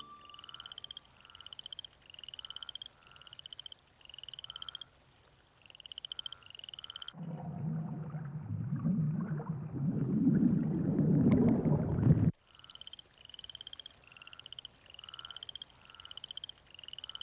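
Frogs croaking: repeated short rising calls in pulsing trains. From about seven seconds in, a louder low rumble swells for about five seconds and cuts off suddenly, then the croaking goes on alone.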